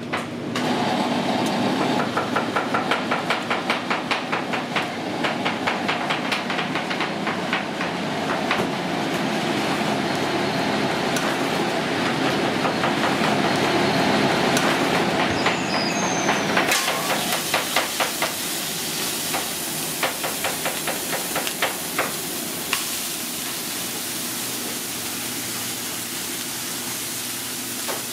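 Metal spatulas clattering on a flat-top griddle in a quick, steady rhythm, typical of steak being chopped for cheesesteaks. From a little past halfway, thin-sliced raw ribeye sizzles on the hot griddle with a steady hiss, and the clatter thins out.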